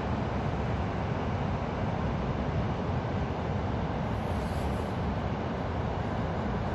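Ocean surf breaking on a sandy beach: a steady, unbroken wash of wave noise, heaviest in the low rumble.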